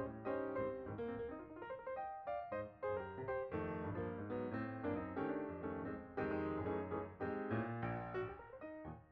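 Background music: solo piano playing a quick run of notes and chords.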